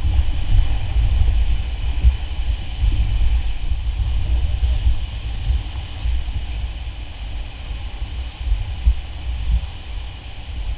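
Rushing whitewater of a river rapid heard from a raft, a steady hiss over a heavy, uneven low rumble. It eases off near the end as the raft drifts into calmer water beside the rapid.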